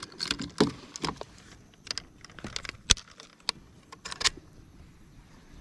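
Scattered small clicks and metallic jingling as a fishing scale and lip grip are handled to weigh a bass. The sharpest click comes about three seconds in, and a short rattle follows about a second later.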